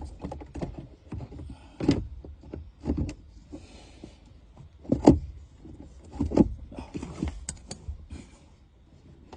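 Irregular knocks, clicks and a few heavier thumps from a car's air-conditioning blower fan being handled and fitted back into its housing under the dashboard. The fan is not running.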